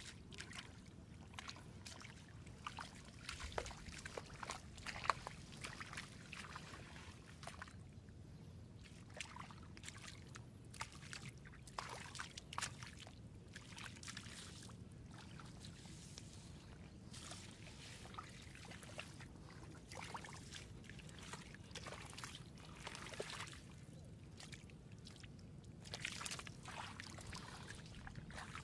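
Hands squelching and sloshing through shallow mud and water, with many small irregular wet splashes and smacks.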